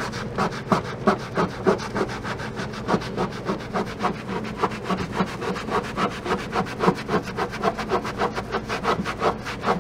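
Scrubber sponge rubbed hard back and forth over a fridge door shelf in fast, even strokes, about three a second, scouring off stuck label paper and glue residue.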